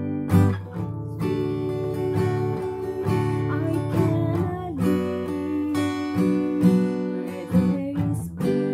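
Acoustic guitar strummed as accompaniment to a woman singing, the chords struck every second or so under sustained sung notes.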